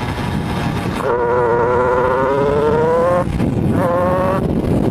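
Shifter kart's two-stroke engine under power, heard from on board. The engine note climbs steadily for about two seconds, breaks off about three seconds in, and comes back briefly near the end, over a steady rushing noise.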